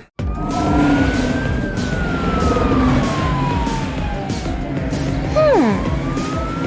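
Cartoon police siren wailing slowly up and down over background music. A short falling swoop sounds about five seconds in.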